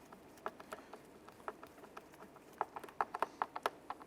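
Small, sharp clicks and taps of a screwdriver against the plastic door handle and door panel as the handle's screws are snugged down. The clicks are scattered, then come in a quick run of about eight a little past halfway.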